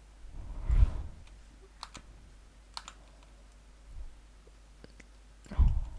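Computer input clicks: a few short, sharp clicks at the desk, with two duller low thumps, one about a second in and one near the end.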